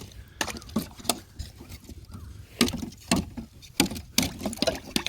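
Ice on a cattle water trough being broken: a string of sharp cracks and knocks at uneven intervals, over a low rumble.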